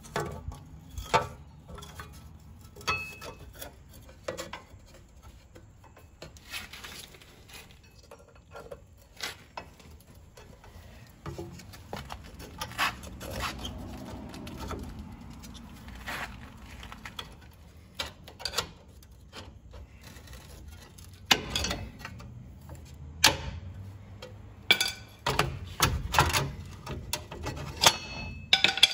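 Irregular metallic clicks, clinks and scrapes of parking brake shoes and their steel return springs being worked into place by hand on the rear hub of a Ram 1500 pickup. The clicks come quicker and louder near the end.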